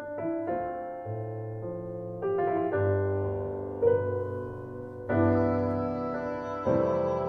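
Piano playing slow, sustained chords, a new chord struck about once a second: the opening of a ballad.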